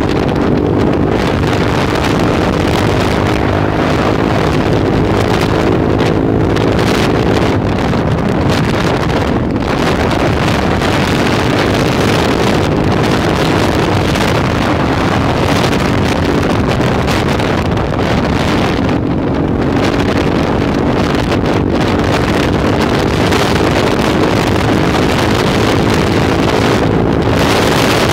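Heavy wind noise on the microphone of a small motorcycle riding at speed, with the engine's steady hum underneath. The hum fades somewhat partway through and comes back later.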